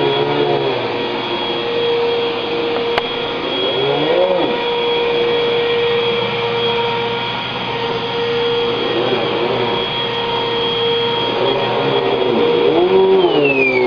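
Vacuum cleaner running with a steady whine. A few short rising-and-falling vocal sounds come over it, about every four seconds. Near the end the motor is switched off and its whine falls away.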